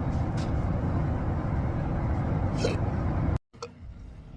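Steady rumbling noise of a moving vehicle. It cuts off abruptly about three and a half seconds in and gives way to much quieter background noise.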